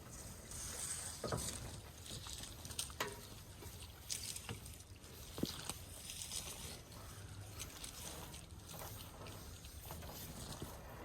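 Water hose being wound by hand onto a hose reel: the hose rubs and slides against the reel and the coils already on it, in uneven swishes, with a few sharp clicks and knocks from the reel and hose.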